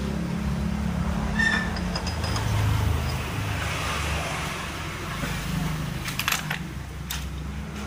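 Automatic motor scooter engine running steadily, with a few sharp metallic clicks about six to seven seconds in.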